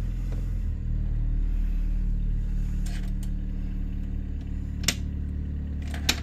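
A Nanni marine diesel idling steadily, described as nice and quiet. Two short clicks come near the end, about a second apart, as the ignition key is handled.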